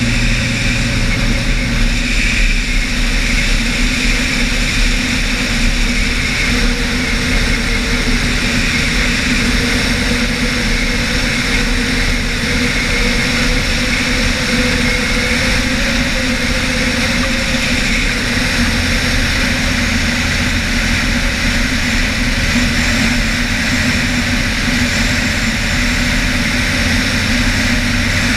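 RANS S7 Courier floatplane's engine and propeller running steadily in flight, with rushing air, on the descent to a water landing.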